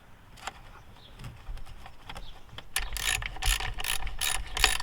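Socket ratchet wrench clicking in quick repeated strokes, starting about three seconds in after a few faint clicks. It is tightening the single bolt that holds the new purge valve solenoid.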